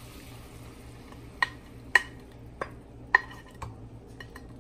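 A glass mixing bowl knocked and scraped while marinated chicken is emptied from it into a large aluminium pot: five sharp clinks about half a second apart, starting about a second and a half in, then a few fainter ticks.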